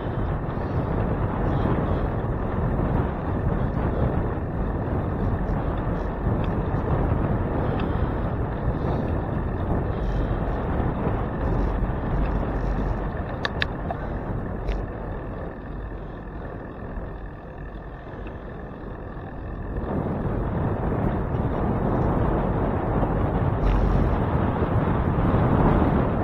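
Wind buffeting the microphone of a handlebar camera on a moving bicycle, a steady low rushing. It eases about two-thirds of the way through and builds again near the end.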